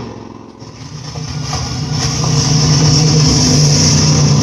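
A motor running with a steady hum, fading briefly near the start and then growing louder to a steady level, played back as a 3D sound effect.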